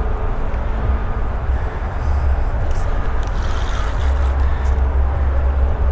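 Steady low rumble throughout, with a spinning reel being cranked as a hooked fish is played on the line.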